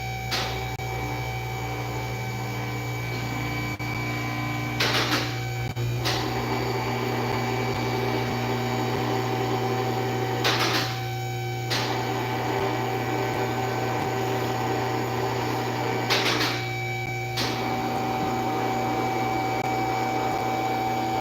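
Steady machine hum with a few fixed tones. A short hissing whoosh comes about every five and a half seconds, four times.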